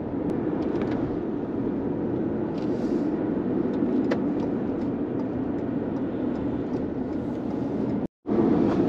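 Steady road and engine noise of a moving car, heard from inside its cabin, with a few faint clicks. It cuts out to silence for a moment about eight seconds in.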